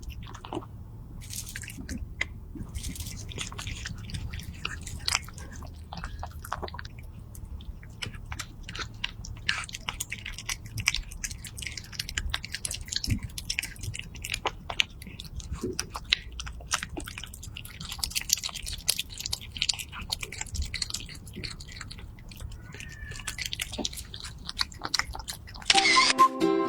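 Cat chewing and crunching food, a long run of small irregular clicks and wet smacks. Music starts up near the end.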